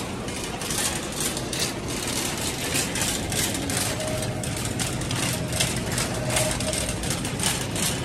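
Metal shopping cart rolling across a store floor: a steady rattle with regular clicks, about two or three a second.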